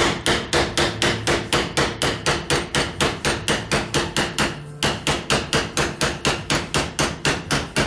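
Hammer blows on a steel socket used as a drift, driving an old wheel bearing out of a Yamaha Kodiak/Grizzly ATV rear knuckle. The strikes are rapid and steady, about four a second, with a brief pause about two-thirds of the way in.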